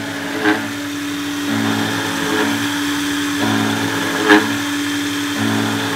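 Self-made CNC milling machine running. A spindle motor holds one steady tone while the stepper motors' lower hum switches in and out about once a second as the axes move. Short louder sounds stand out twice, near the start and about four seconds in.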